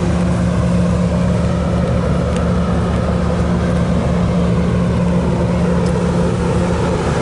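Large car ferry's engines running steadily: a deep, even hum with a fast, regular low throb underneath.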